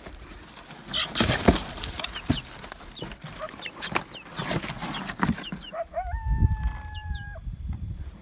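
Chickens clucking and giving short falling chirps as they follow along, over footsteps and rustling in dry brush. About six seconds in, one bird gives a single long, level call lasting about a second and a half.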